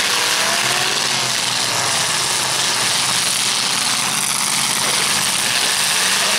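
Several demolition-derby pickup truck engines running and revving together as the trucks push against each other.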